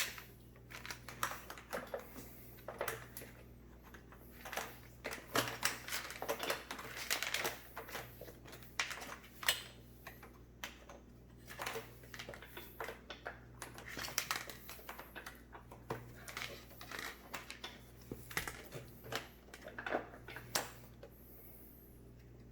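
Irregular clicks and rustles of a rag being wiped along a vacuum cleaner's power cord and the cord being handled.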